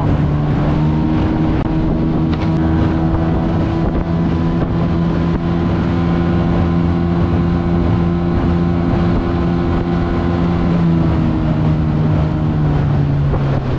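Mercury 25 hp two-stroke outboard motor running at a steady cruising speed, pushing the boat under way.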